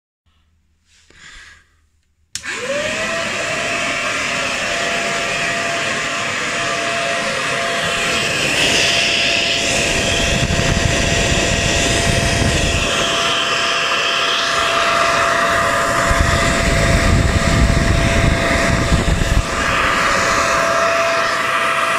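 A 1920s P A Geier Royal vacuum cleaner's motor switched on about two seconds in, spinning up within half a second to a steady whine over a loud rush of air; the rush grows heavier and lighter in waves as it runs.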